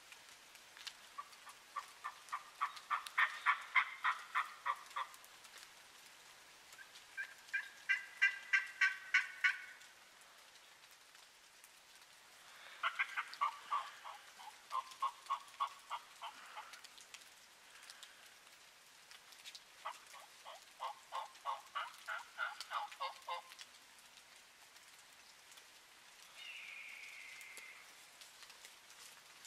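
Turkey yelping: four runs of rapid, evenly repeated yelps, each a few seconds long, then a single short note near the end.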